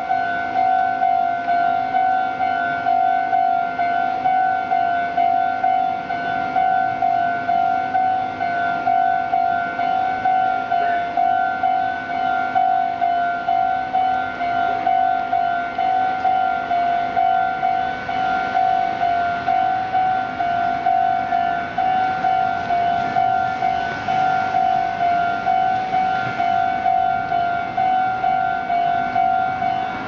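Japanese railway level-crossing warning bell ringing continuously, a steady repeating "kan-kan" ding with even strokes about one and a half a second. It signals that the crossing is closed for an approaching train.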